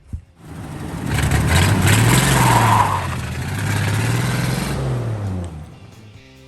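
A vehicle engine revving up and back down twice, loud, fading out about five and a half seconds in.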